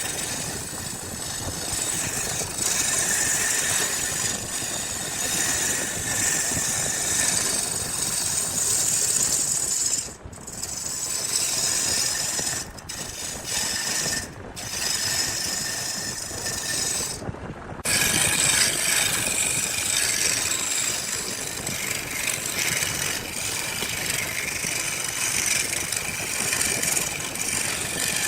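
A power tool grinding or sanding wood with a steady rasping noise, cut off briefly four times: about ten seconds in, twice more over the next five seconds, and once near eighteen seconds.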